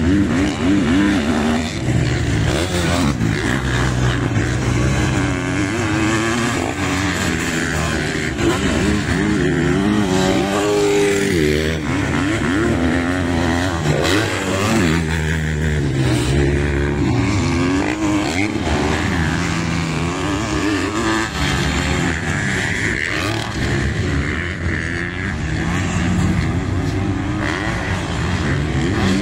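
Several motocross dirt bike engines revving up and down together, their pitches rising and falling and overlapping as the bikes accelerate and back off around the track.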